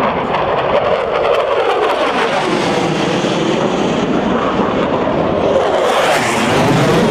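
US Air Force Thunderbirds F-16 jet engine noise as the fighter flies past overhead: a loud, steady roar with sweeping, phasing swirls running through it, growing slightly louder and brighter near the end.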